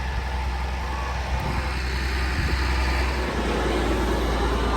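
Tractor engine running steadily, driving a feed grinder, with a rough grinding rattle that thickens about two seconds in.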